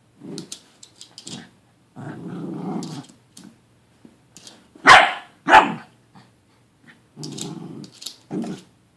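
Dog growling in low, drawn-out rumbles, broken by two short, sharp barks about five seconds in, which are the loudest sounds.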